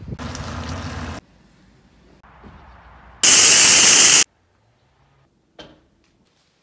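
A car-wash pressure wand spraying foam onto a car: about a second of loud, even hiss, the loudest sound here. Around it are other short, quieter snippets of noise, and a brief burst near the end.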